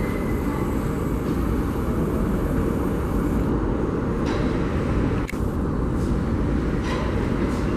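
R32 subway train approaching along the station track: a steady low rumble of wheels on rails echoing through the station, with a few sharp clicks in the second half.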